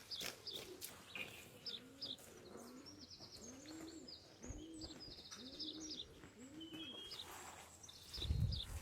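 Birds calling: a low cooing call repeated about six times, with higher chirps from small birds. A low thump comes near the end.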